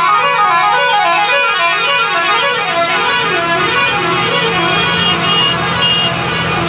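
A truck's multi-tone musical horn playing a fast run of notes that climbs and falls over and over without a break, over a steady low engine hum.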